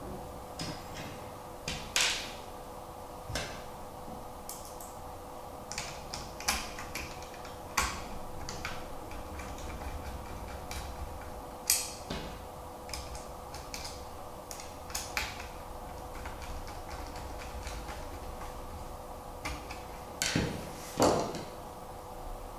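Irregular light clicks and taps of clear acrylic and metal clock-kit parts being handled and fitted together by hand, a dozen or so spread out, the sharpest about two seconds in, near the middle and near the end, over a faint steady hum.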